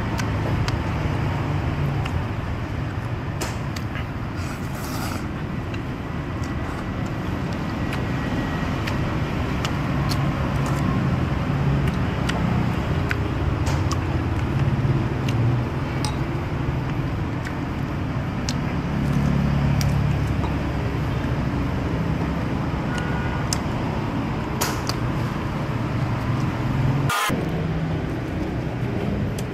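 Steady road-traffic noise, a continuous low rumble of passing vehicles, with scattered light clinks of chopsticks and a spoon against a soup bowl.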